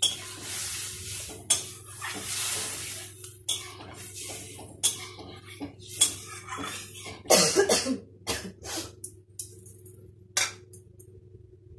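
Steel spatula scraping and knocking against an aluminium kadai as a thin, watery curry is stirred, with hissing at first as the added water meets the hot pan. The clatter stops about two seconds before the end.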